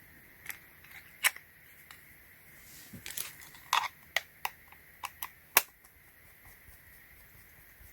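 A dozen or so irregular, sharp plastic clicks and taps of a small remote-control toy car and its controller being handled and their buttons pressed.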